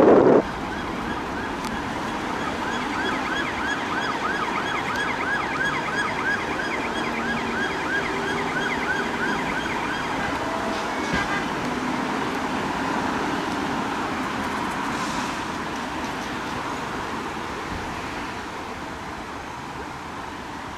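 Police car siren on a fast yelp, about three sweeps a second, over road traffic. The yelp stops about ten seconds in, leaving traffic noise that slowly fades.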